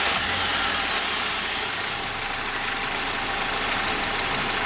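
Hyundai Grand i10's 1.2-litre four-cylinder petrol engine, just started and idling steadily with a new set of spark plug leads fitted. It runs smooth and even, without the stumbling misfire that worn or loose leads cause.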